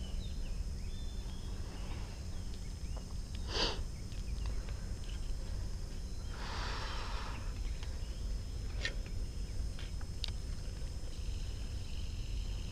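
Outdoor creek-bank ambience picked up by an action camera: a steady low rumble, broken by a short rustle about three and a half seconds in and a longer hissing rustle about six and a half seconds in. A few light clicks follow, and insects begin chirping near the end.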